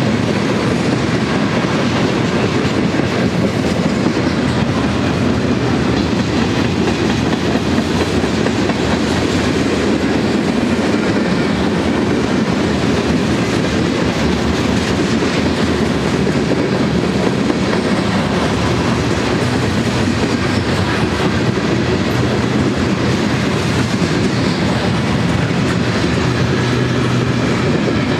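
Freight cars of a mixed manifest train (flatcars, boxcars, hoppers and tank cars) rolling steadily past: a continuous rumble and rattle of steel wheels on rail, with no change in level.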